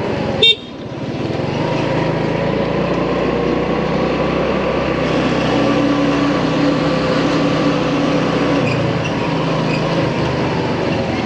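Motorcycle engine running steadily under way, with a steady low hum and road noise, a mid-pitched tone joining for a few seconds in the second half. A short loud click comes about half a second in.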